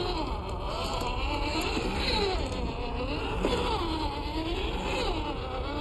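Electric motor and gearbox whine of a WPL Toyota FJ40 scale RC crawler, rising and falling in pitch over and over as the throttle is worked over dirt and rocks, with a steady low rumble underneath.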